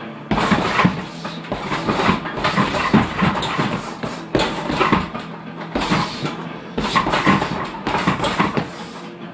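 Gloved punches landing on a heavy bag in fast flurries, starting about a third of a second in, with short breaks between combinations.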